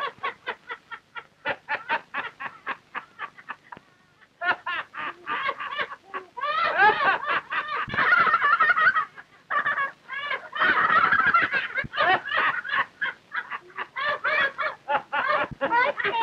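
A man laughing heartily in long cackling runs of quick pulses, with a short lull about four seconds in.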